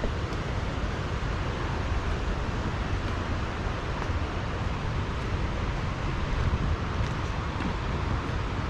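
Steady rushing of a creek in flood, running high after heavy rain.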